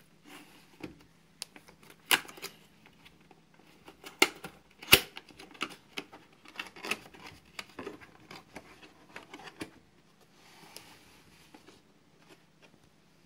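Cardboard box and black plastic hard case being handled: a run of sharp clicks and knocks as the case is worked out of the box, the loudest about five seconds in, then a soft scraping rustle of cardboard about ten seconds in.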